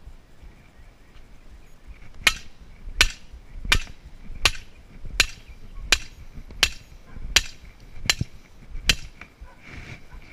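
Sledgehammer driving a steel T-post into the ground: ten blows of metal on metal at a steady pace, about one every 0.7 seconds, starting about two seconds in.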